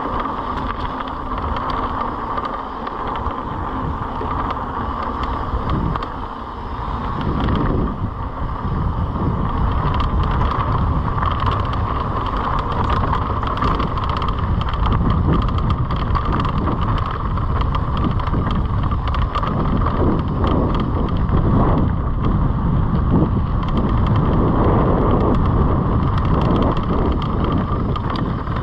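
Wind rushing over the action-camera microphone while a mountain bike rolls fast down a dirt trail, its tyres rumbling on the ground and the bike rattling and clattering over bumps. The rumble and clatter grow louder and rougher from about seven seconds in.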